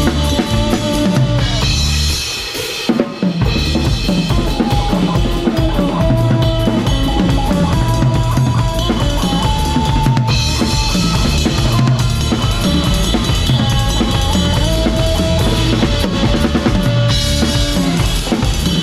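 Live band playing a cha-cha, with the drum kit up front: kick drum, snare and rim clicks under a sustained melody line. About two seconds in the bass and kick drop out for a short break, and the full band comes back in about a second later.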